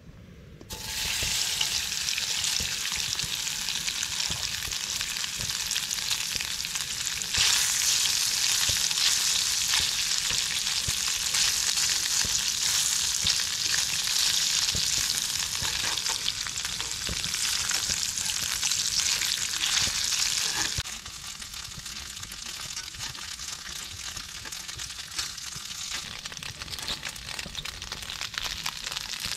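Tofu pieces sizzling in hot oil in a cast iron skillet as they pan-fry until the surface crisps. The sizzle starts suddenly about a second in as the tofu goes into the oil, grows louder about seven seconds in, and drops back quieter about two-thirds of the way through.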